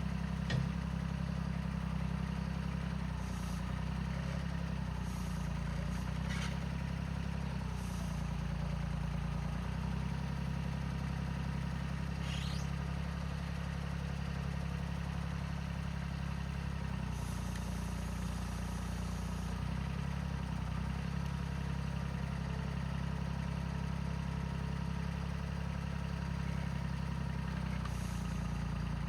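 Tractor engine running steadily at low revs, with a few faint clicks over it.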